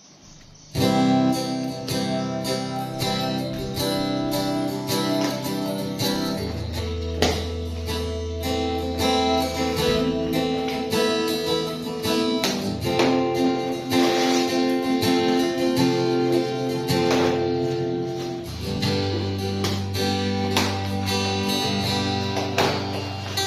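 Guitar music, plucked and strummed chords over a bass line, starting about a second in.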